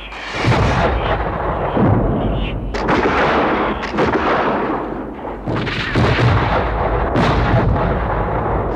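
Battle sound effects: cannon blasts and musket shots going off one after another, roughly every second or so, each trailing into a rumble.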